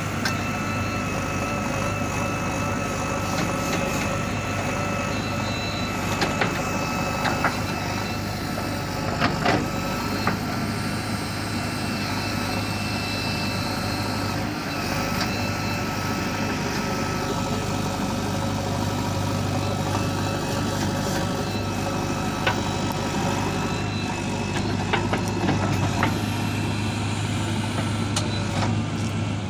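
JCB backhoe loader's diesel engine running steadily under work, with a few sharp metallic knocks and clanks from the machine here and there.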